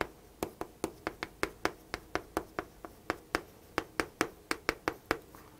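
Chalk tapping and clicking against a chalkboard as words are written: a quick, uneven run of sharp taps, about four or five a second.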